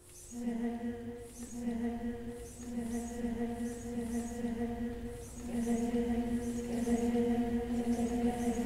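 A choir singing long, steady held notes in a low chord, coming in just at the start and swelling louder about five and a half seconds in.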